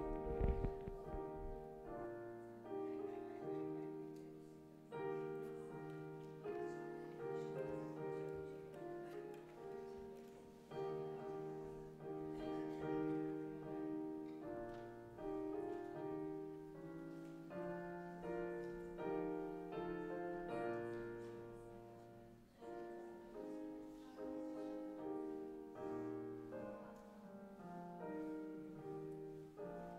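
Slow, quiet solo piano music: soft chords and melody notes struck roughly once a second, each ringing and fading away. A short clatter of knocks sounds in the first second.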